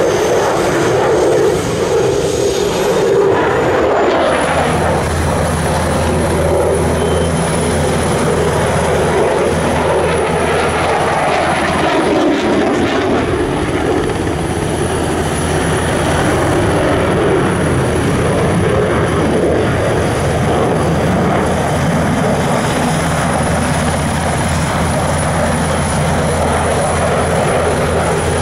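Jet noise from a Eurofighter Typhoon's twin EJ200 turbofans as it flies a display overhead. From about four seconds in, a steady low hum and a thin high whine from a nearby NH90 helicopter's engines starting up run underneath it.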